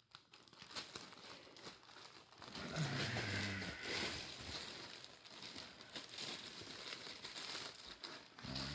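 Clear plastic bag stuffed with torn shoji paper crinkling and rustling as a kitten paws and bites at it, loudest a few seconds in. A brief low voice-like hum comes about three seconds in.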